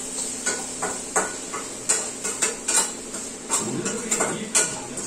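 Metal spatula scraping and clinking against a steel pan as chopped ridge gourd and onion are stirred, about two knocks a second, over a steady high hiss.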